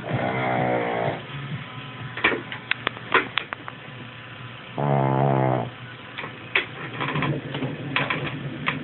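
11-year-old Shih Tzu snoring: two long, pitched snores, one at the start and one about five seconds in, with short clicking snorts between them.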